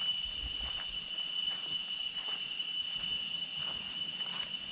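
Insects, crickets or cicadas, keeping up a steady, unbroken high-pitched trill, with a few faint ticks in the background.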